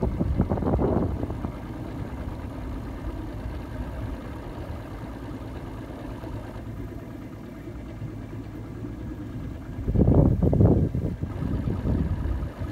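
Boat motor idling steadily with a low rumble. Near the start and again about ten seconds in, wind buffets the microphone in loud bursts.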